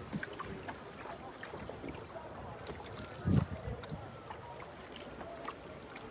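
Water splashing and lapping around a small rowboat being paddled on a river, with scattered small knocks and one louder dull thump a little past halfway.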